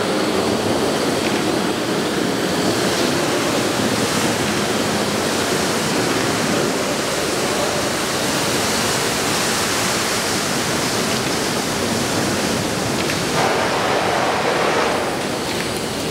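Thousands of matches set into a wall burning together as one large blaze: a steady, loud rushing hiss of flame.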